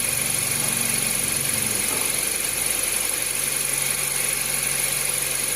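Honda Fit engine idling steadily with its accessory belt turning. No belt squeal comes through: the A/C compressor has been pushed back to realign its pulley, which cured the belt chirp.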